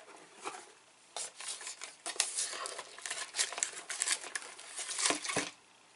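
Paper packaging being handled: a folded cardstock snack box and its contents rustling and crinkling for several seconds, with a couple of dull knocks near the end.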